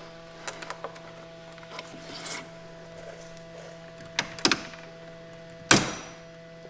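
Car intake parts being handled and fitted by hand: scattered light clicks and knocks, with a single sharp knock that rings briefly near the end, over a steady low hum.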